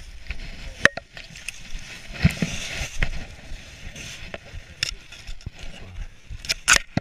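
Mountain bike rolling over a leaf-covered dirt trail: tyres crackling through dry leaves, with sharp knocks and rattles from the bike over bumps and a cluster of loud clacks near the end.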